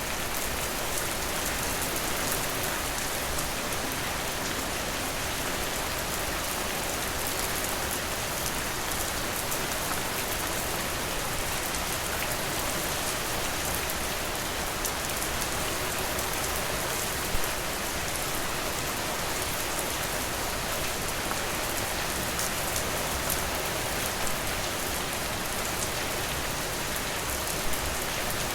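Steady, dense rainfall with a close patter of drops hitting a surface, with one brief louder drop or tap a little past halfway.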